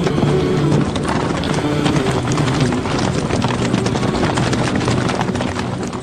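Hoofbeats of many horses clattering together, with music underneath.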